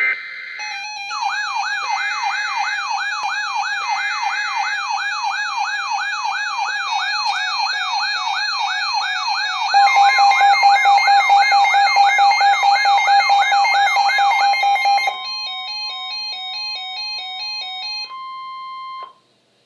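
Emergency alert tones ahead of a severe thunderstorm warning broadcast: three short buzzy data bursts of the SAME header, with a siren-like tone sweeping upward about three times a second over them. About ten seconds in a louder steady alert tone joins, and near the end the sweeping stops, leaving pulsing beeps and then a single steady tone that cuts off suddenly.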